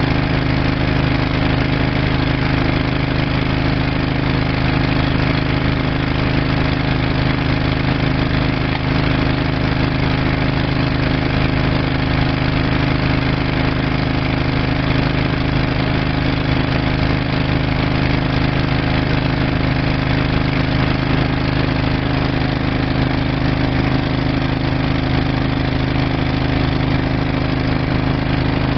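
An engine idling steadily, with no change in speed.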